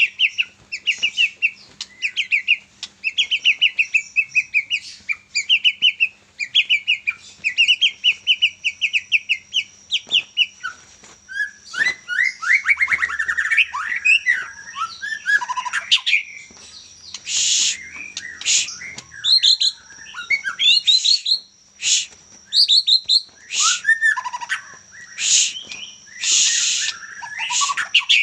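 Young white-rumped shama singing: fast, rhythmic repeated chattering phrases for about the first ten seconds, then varied whistled phrases sweeping up and down, broken by short harsh rasping bursts.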